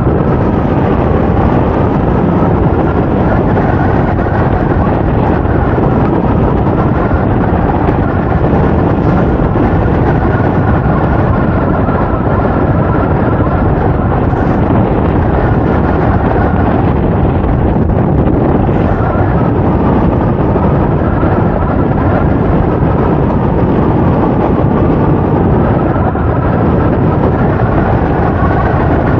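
Loud, steady wind rushing over a camera microphone in paraglider flight, with a faint wavering whistle above it.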